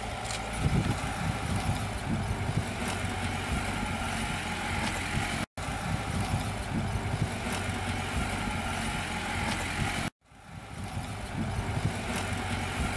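Vintage Land Rover Series I engine running as the vehicle drives slowly along a dusty dirt track. The sound cuts out abruptly twice, about five and ten seconds in, and starts again each time.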